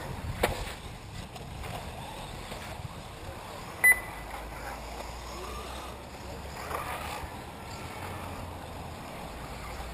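Electric 1/8-scale RC off-road buggies racing on a dirt track, their motors and tyres making a faint, steady noise. About four seconds in there is one short, loud electronic beep.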